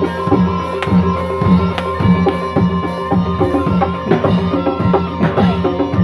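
Live Reog band music: drums beat a steady rhythm of about two strokes a second, with sharp cymbal strikes and a held high ringing tone over it.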